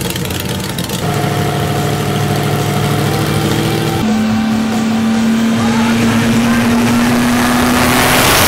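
Propeller aircraft engine of a Titan T-51 Mustang replica running as the plane taxis. It swells into a loud rushing pass near the end as the aircraft goes by close, with background music underneath.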